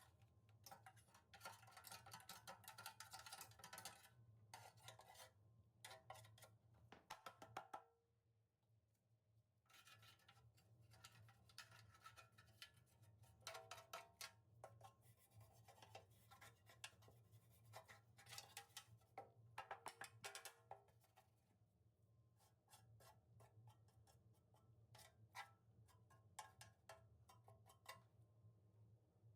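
Faint, irregular clicks and taps over a low steady hum, like small parts being handled.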